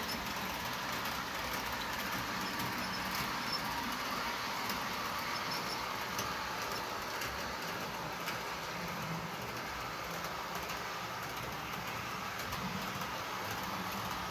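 On30-scale model train running along its track: the steady whir of the locomotive's small motor and the rolling wheels, with a few light clicks along the way.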